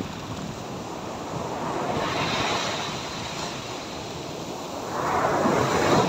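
Ocean surf breaking and washing in foam around a microphone at water level; a louder rush comes about five seconds in as a wave breaks and splashes right against it.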